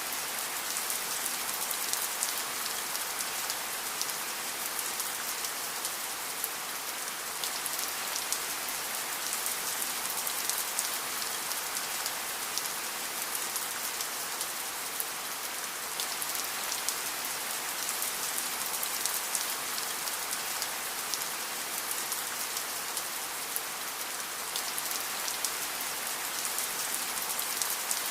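Steady rain falling: a dense, even hiss of drops with many small individual drop ticks through it.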